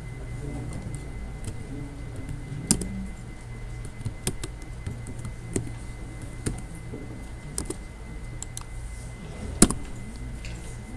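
Computer keyboard typing: scattered keystrokes as shell commands are entered, with a sharper, louder key click near the end, over a steady low hum.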